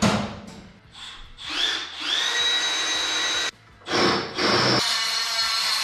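Power drill spinning up with a rising whine and running steadily for about a second and a half before stopping abruptly, then a short rough burst and a second steady run near the end: drilling a 3/8-inch hole in a bracket for the battery ground.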